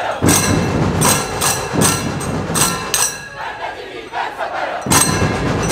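Live procession percussion: drums and cymbals strike hard about twice a second over a shouting crowd, with a short lull near the end before the beating resumes.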